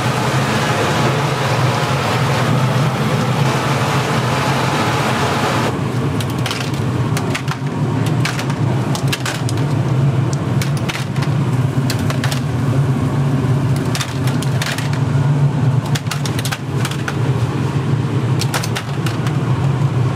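Water running from taps into a stainless steel noodle boiler, a dense hiss that stops abruptly about six seconds in. A steady low hum continues throughout, with scattered sharp metal clinks of long-handled noodle strainer baskets being set into the boiler.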